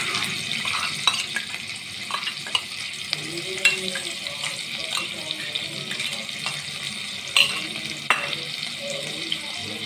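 Hot oil sizzling steadily in a nonstick pan where mustard seeds, green chilli pieces and freshly added ginger-garlic paste are frying, with a few sharp pops and crackles.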